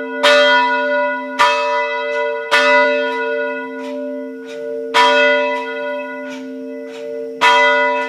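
Amplified church bells broadcast over loudspeakers, ringing loudly. There are five strong strikes at uneven intervals of one to two and a half seconds, with softer strikes between them, over a low hum of the bells ringing on.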